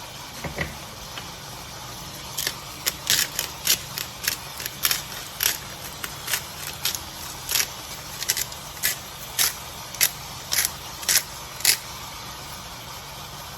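Beef roast searing in oil in a hot skillet: a steady sizzle, with sharp pops of spitting fat about one or two a second.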